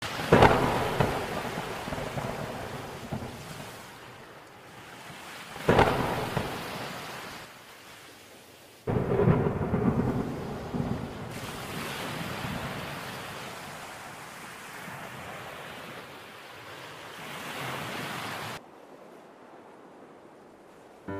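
Thunderstorm sound effect: three claps of thunder, one right at the start, one about six seconds in and one about nine seconds in, each rolling away over steady rain. Near the end the storm drops to a faint hiss.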